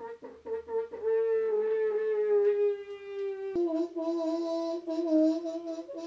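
Steel panel radiator on a hand pressure test pump, groaning under a pressure past 14 bar as the pump handle is pushed down. It is one long horn-like tone that sinks slightly, breaks with a click about halfway, then carries on a little lower. The tester hears the radiator creaking strangely at this pressure and takes it as a sign that the radiator could fail.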